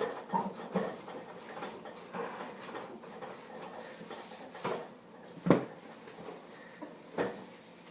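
Scattered knocks and clunks of food containers being handled and set down in a refrigerator, the loudest about five and a half seconds in.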